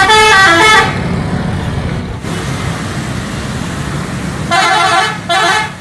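Multi-tone musical bus horns of the Indonesian 'telolet' kind: a loud run of stepping notes in the first second, then two shorter horn blasts near the end. Between them, bus engine and road noise.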